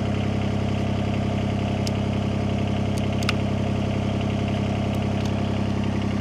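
Yanmar mini excavator's diesel engine idling steadily, with a few light clicks from a hand crimping tool on PEX water pipe.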